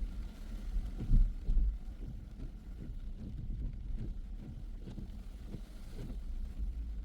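Car driving along city streets: a steady low rumble of engine and road with irregular low thumps, the loudest about a second in.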